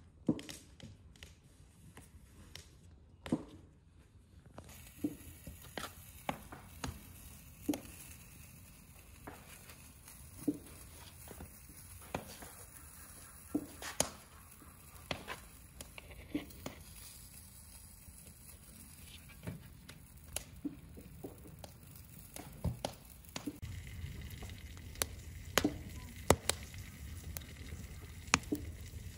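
Wood fire crackling in a stove under a saj griddle, with scattered sharp pops over a steady hiss; the low rush of the flames grows louder about three-quarters of the way through. The first few seconds hold only light clicks and taps.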